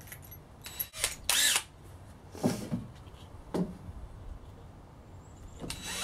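Cordless drill being fitted with a new bit: a few clicks at the chuck, then a short spin of the motor with a rising whine about a second and a half in, followed by a couple of light knocks of handling.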